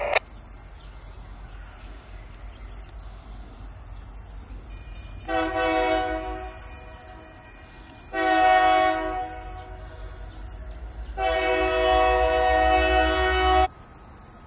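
Diesel freight locomotive's air horn sounding three blasts as it nears a grade crossing, the third the longest, over the low rumble of the locomotive that grows louder. The sound cuts off suddenly near the end.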